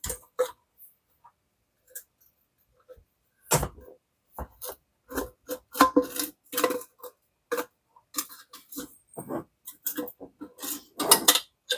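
Irregular clinks, taps and knocks of metal iron parts and a hand tool being handled during disassembly of a 1950s steam iron, sparse at first and busier from a few seconds in.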